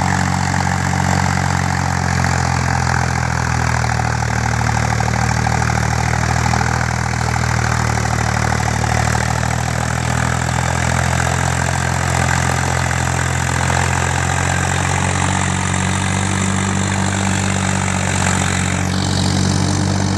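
Tractor diesel engine running steadily at an even, low note with no change in speed.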